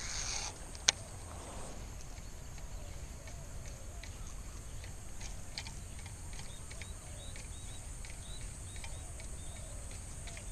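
Wind rumbling on the microphone, with faint bird chirps and scattered small ticks. Near the start a short hiss, then about a second in a single sharp click, fitting a Shimano SLX baitcasting reel being cast and engaged.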